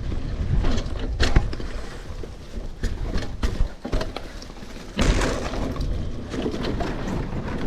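Mountain bike, a Specialized Rockhopper hardtail, riding over a dirt trail: steady rumble of tyres and wind on the microphone, with chain and frame rattles and sharp knocks as it hits bumps. The hardest knock is about a second in, and a heavy jolt comes about five seconds in.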